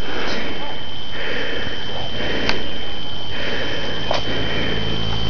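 Steady hiss with a constant high whine, the camera's own recording noise, with soft rustling and a single sharp click about two and a half seconds in.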